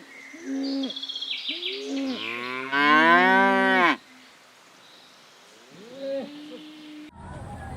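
A cow moos once: one long, loud call with a low pitch that rises slightly, about two and a half seconds in, lasting a second and a half and cutting off abruptly. Short bird calls and chirps come before it and again after it, and a steady hiss starts suddenly near the end.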